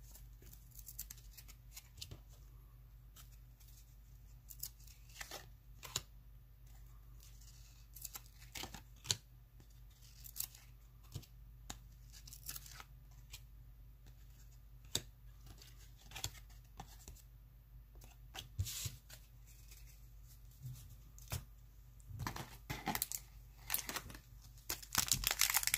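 1992 Fleer Ultra baseball cards being handled and flipped one at a time, with scattered short snaps and scrapes as the stuck-together cards are pulled apart. The handling gets busier near the end.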